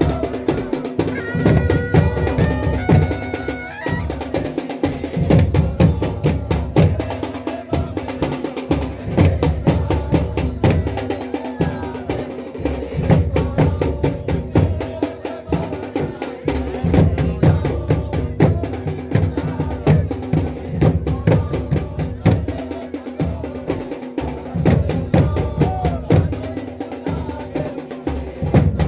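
Drums played in a dense, continuous rhythm as music, with a high melody line over them for the first few seconds.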